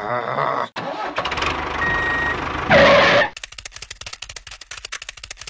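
A sequence of added sound effects. First a noisy rumble with a brief steady beep in it. Then, about three seconds in, a short loud blast, followed by rapid even clicking that runs on quietly.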